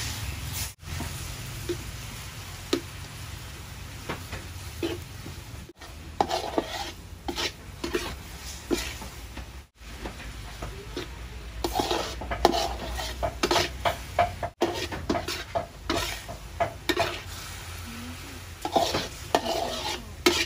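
Metal spatula stirring and scraping shredded sweet potato around a wok, over a steady sizzle and bubbling and a low hum. The scraping clatter comes in spells, busiest in the middle and near the end, and the sound cuts out briefly a few times.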